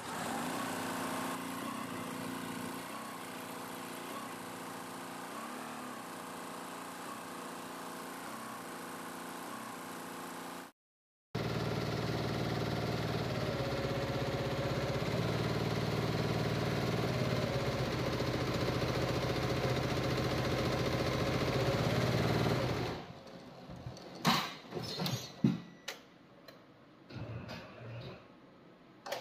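Multi-needle computerized embroidery machine running steadily while stitching. The sound breaks off briefly about eleven seconds in and comes back louder. For the last several seconds it is much quieter, with scattered clicks and knocks.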